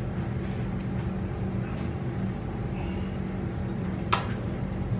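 Steady low machine hum, with a single sharp click about four seconds in.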